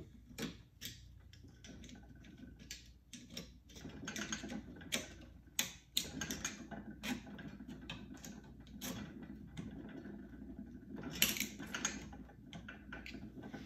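Irregular small metal clicks and scrapes as a screwdriver tip works a washer into place inside a Hurst shifter's body, with a cluster of louder clicks about eleven seconds in.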